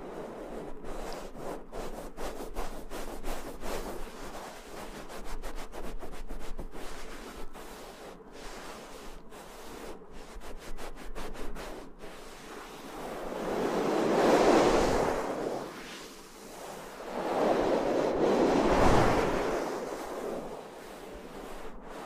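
Close-miked ASMR rustling: a soft crackly rustle with many small clicks, then two slow swelling whooshes of rubbing, each rising and fading over a few seconds.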